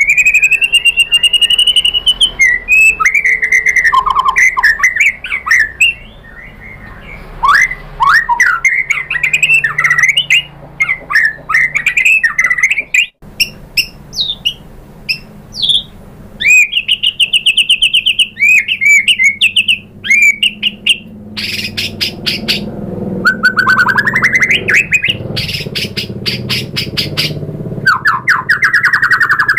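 White-rumped shama in full, agitated song: loud rich whistles and slurred glides, broken later by fast rattling runs of rapidly repeated notes.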